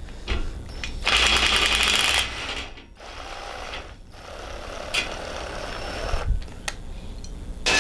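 Cordless impact driver driving a jack nut setting tool to set a jack nut in a sheet-metal fender. There is a loud burst of rapid hammering about a second in that lasts about a second, then quieter running with a few clicks.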